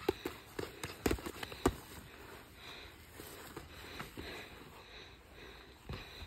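Sparring: a quick run of thuds and slaps from strikes and footwork in the first two seconds, then quieter shuffling with sharp breaths, and another thud near the end.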